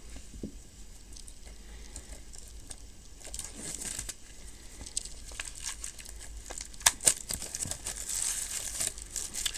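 Plastic shrink-wrap on a metal steelbook Blu-ray case crinkling and tearing as it is opened. It starts about three seconds in, with many small clicks and one sharp crackle near seven seconds.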